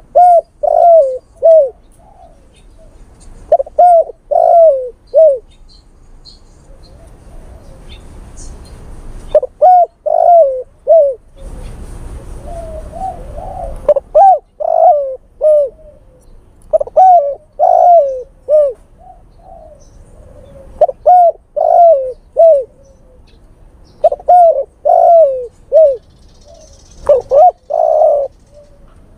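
Male spotted dove cooing, its call to a female: about eight phrases of three or four falling coos, repeated every few seconds.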